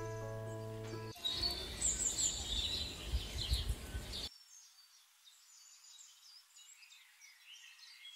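Music ends about a second in, followed by birds chirping over outdoor background noise. After about four seconds the noise drops away, leaving fainter chirps.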